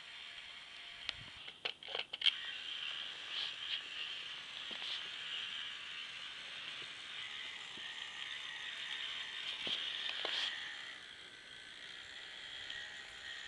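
K'NEX four-wheel-drive monster truck's motor and plastic gear drivetrain whirring steadily as it drives. A quick run of sharp clicks and knocks comes about two seconds in.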